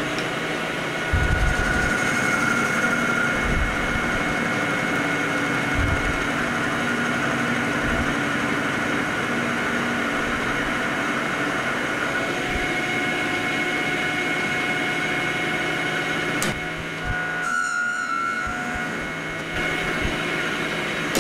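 Manual metal lathe running with its four-jaw chuck spinning, a carbide insert taking a facing cut across the end of an O1 tool-steel bar: a steady machine whine with a few dull low thumps in the first few seconds. The sound dips briefly near the end, then picks up again.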